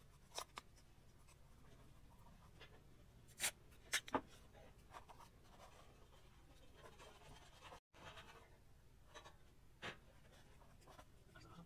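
Paper being handled and pressed down over a metal flange: a few short, scratchy rustles and crinkles, the loudest about 3.5 to 4 seconds in, over a faint low hum.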